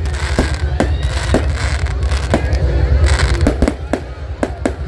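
Aerial fireworks display: a rapid, irregular string of sharp bangs from shells launching and bursting, over a continuous low rumble.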